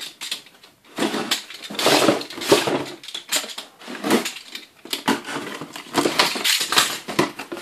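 Box cutter slicing through the packing tape along the seam of a cardboard box, with the cardboard scraping and rustling as the box is held and turned, in a series of rough strokes.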